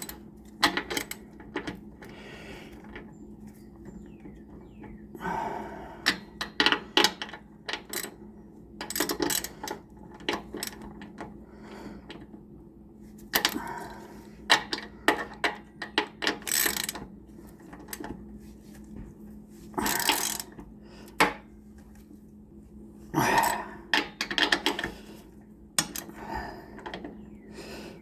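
Metal hand tools clinking against the motorcycle's front wheel hardware, with short runs of a ratchet wrench clicking as the axle and caliper bolts are tightened. The clicks come irregularly in clusters.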